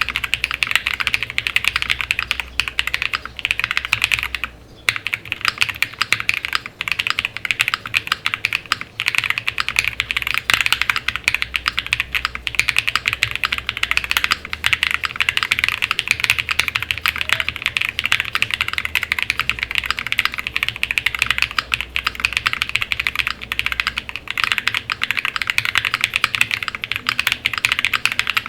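Odin75 mechanical keyboard being typed on fast and continuously, with a short pause about four seconds in. The keys are lubed and filmed Glorious Panda tactile switches under PBT keycaps on an FR4 plate with full foam dampening.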